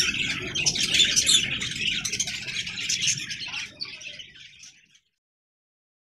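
A flock of lutino peach-faced lovebirds chirping and chattering, a dense stream of quick high-pitched calls that fades and stops about five seconds in.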